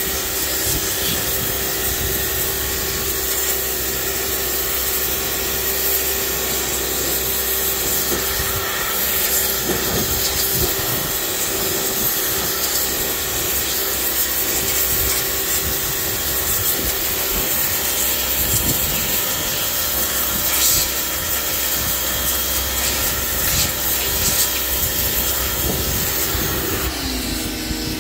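Pressure washer running steadily, its water jet hissing against wooden deck boards. Near the end the spray stops and the machine's note drops lower.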